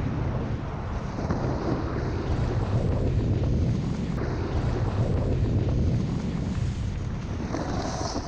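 Wind buffeting the microphone of a snowboarder riding downhill: a steady, rumbling rush of noise with no distinct strokes.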